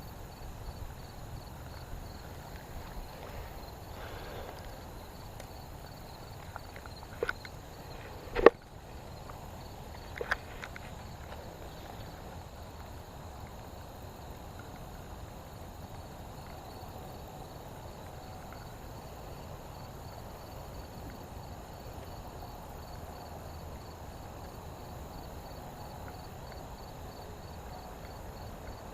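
Quiet outdoor background with an insect chirping steadily in a fast high-pitched pulse. Three sharp knocks or clicks break in about seven, eight and a half and ten seconds in, the middle one loudest.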